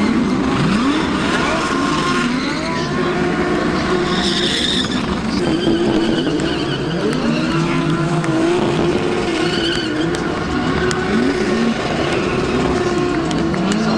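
DTM race car engines revving hard up and down while the cars spin donuts, with tyres skidding and squealing on the tarmac. The revs rise and fall again and again.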